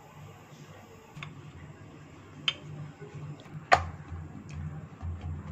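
Hands working thin dough wrappers on a wooden board: a few sharp taps and clicks, the loudest about three-quarters of the way in. A low steady hum runs beneath them.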